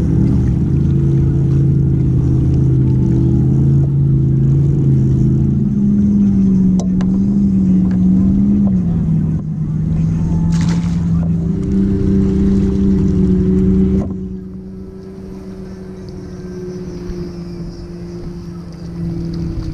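Motorboat engine running, its pitch shifting up and down in steps every few seconds, then dropping to a quieter level about two-thirds of the way through.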